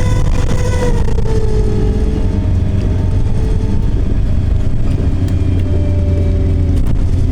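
Bus drivetrain heard from inside the bus: a steady low rumble with a pitched whine that slides down in pitch about a second in as the bus slows, then carries on more faintly.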